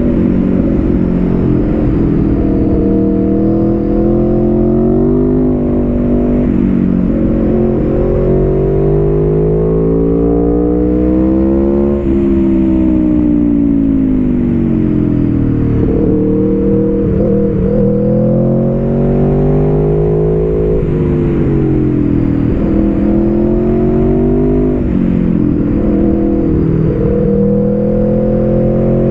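Aprilia Tuono V4 1100 Factory's 65-degree V4 engine, through a Graves slip-on exhaust, heard on board. The engine pitch climbs in long sweeps as the bike accelerates, then falls away as the throttle rolls off, several times over.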